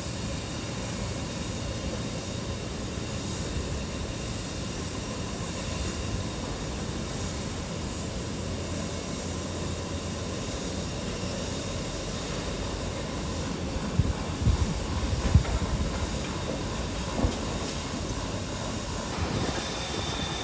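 Steady distant rumble of city and construction-site machinery heard from high above, with a few low thumps about two-thirds of the way through.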